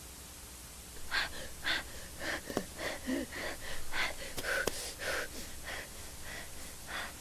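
Steady hiss, then from about a second in a string of short, breathy gasps one after another, with a couple of sharp clicks among them.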